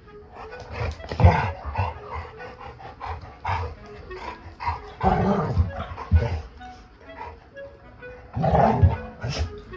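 Labrador retriever barking in a series of threatening-sounding barks at a person's hand, loudest about halfway through and again near the end; the owner can't tell whether the dog is angry or playing.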